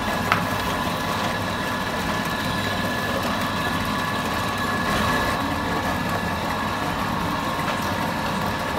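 Electric motor driving a steel twin-roller dough sheeting machine, running with a steady hum and a high whine as rice-flour dough is fed between the rollers. There is one light click just after the start.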